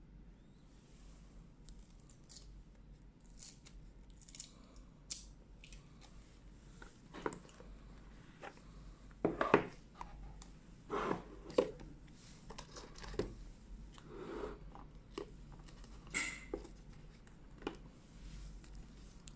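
Hands unboxing a smartphone: irregular clicks, taps and short rustles of the box and packaging, busiest in the middle.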